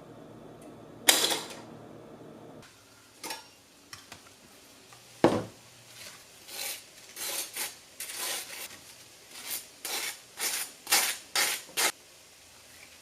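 Kitchen utensils knocking and scraping against dishes and cookware: a loud clank that rings on briefly about a second in, a sharp knock about five seconds in, then a run of quick clinks and scrapes, about two a second.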